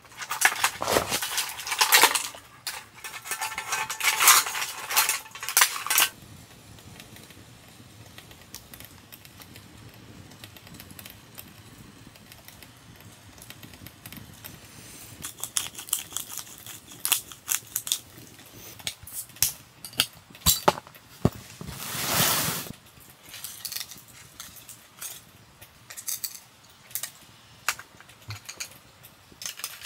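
Scallops in their shells tipped from one pan into a hot pan on a gas stove, the shells clattering against the metal and each other for the first several seconds. Then sparse clicks and knocks of tongs against shells and pan, with a short rushing noise a little past the middle.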